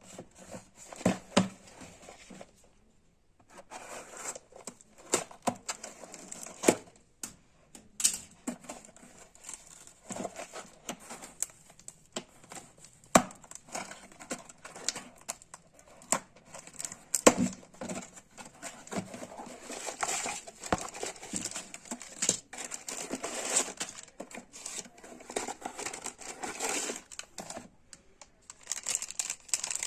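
Packaging being crinkled and torn open by hand, in irregular rustles broken by sharp clicks and taps, with a short pause about three seconds in.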